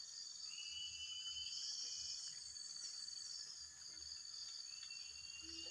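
Faint, steady chorus of insects: high, unbroken buzzing, with a thinner lower trill that drops out and comes back.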